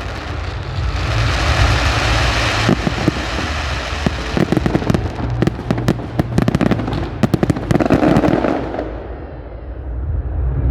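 Fireworks display: a hissing burst, then rapid volleys of sharp cracks and pops over a low rumble, thinning out near the end.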